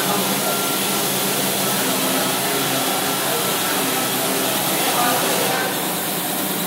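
Pneumatic orbital sander running steadily against a sheet-metal tabletop, a continuous airy hiss with the rasp of the pad on the metal. The highest part of the hiss drops off about five and a half seconds in.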